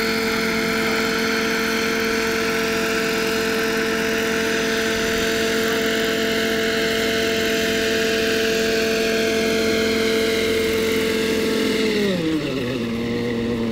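Vario EC135 scale model helicopter hovering, its engine and rotors giving a steady, even drone. About twelve seconds in, with the model set down on the grass, the engine is throttled back and the pitch falls sharply to a lower idle.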